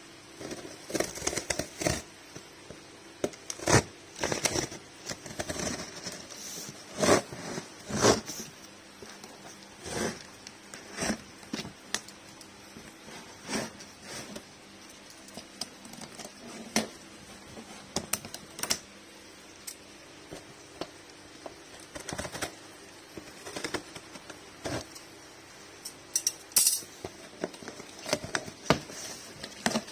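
Plastic strapping on a cardboard box cut with scissors and the box handled open: irregular snips, scrapes and knocks of cardboard.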